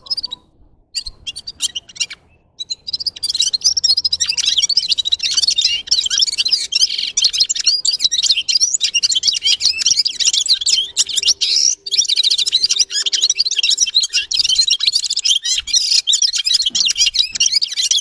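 Red-fronted serin singing: a few short chirps, then from about three seconds in a long, fast, unbroken high twittering song that stops suddenly at the end.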